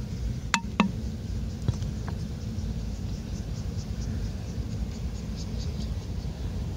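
A plastic bottle dipped into shallow ditch water, giving a few small clicks and watery plops in the first second. Under it is a steady low rumble, with faint insect chirps repeating through the middle.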